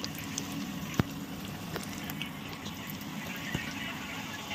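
Gulab jamun dough balls deep-frying in a mix of ghee and oil: a steady sizzle with scattered small pops, and one sharper pop about a second in.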